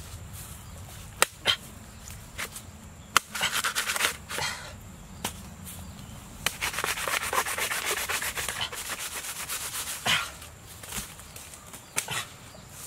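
A long knife chopping and scraping at the base of a bamboo shoot in dry bamboo leaf litter: a few sharp knocks early, then a long stretch of steady scraping and rustling in the middle.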